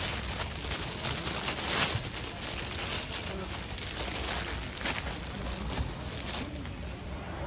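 Thin plastic bag crinkling and rustling as hands work a round flatbread out of it and break off a piece.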